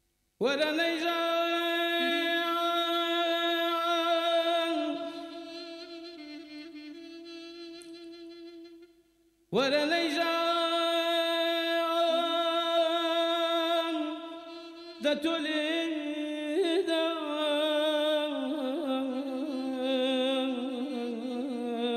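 A male singer sings a Kurdish folk song, holding long, sustained notes. The first note fades after about four seconds, a new one starts sharply about nine and a half seconds in, and from about fifteen seconds the line turns into wavering, ornamented runs.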